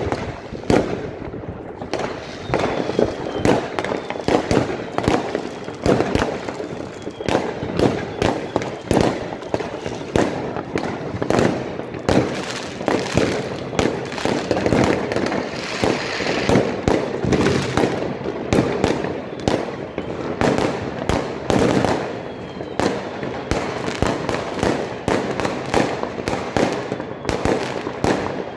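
Many fireworks going off at once: a dense, unbroken run of bangs and crackles from bursting shells and firecrackers, with a faint whistle a couple of times.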